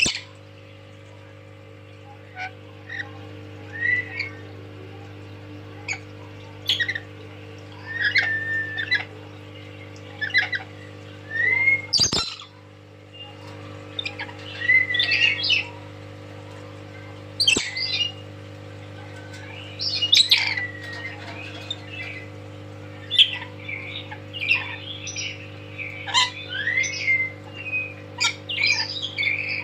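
Pet lory squawking and whistling in short, scattered calls, some of them quick rising whistles, over a steady low hum. A sharp knock sounds about twelve seconds in.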